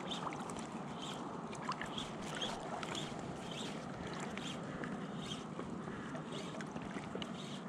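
Small water laps and splashes against a float tube on calm water, with soft irregular ticks about every half second over a steady low wash.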